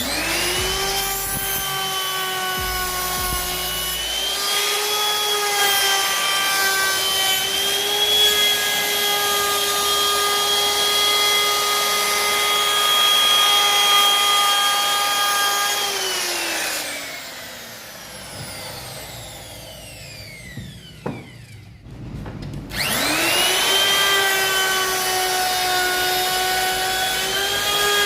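NRT Pro 3601 HD wood router switched on, its motor whine climbing to full speed and running with small dips in pitch as it cuts wood. About 16 seconds in it is switched off and winds down, with a single click as it nearly stops. It is started again about six seconds before the end and climbs back to full speed.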